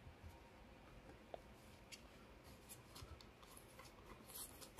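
Faint rustling and light ticks of trading cards being handled and a card slid into a clear plastic sleeve, a little louder near the end.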